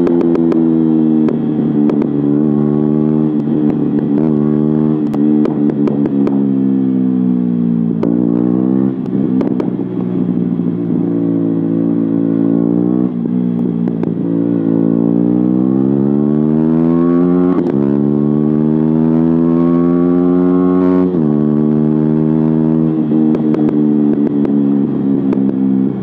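KTM Duke 125's single-cylinder four-stroke through a de-baffled Akrapovic silencer, pulling hard under way. It climbs in pitch and drops sharply at each upshift, several times, then holds a steady note while cruising.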